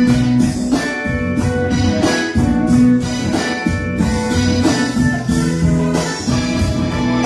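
Live band jamming: amplified instruments holding pitched notes over a steady drum beat.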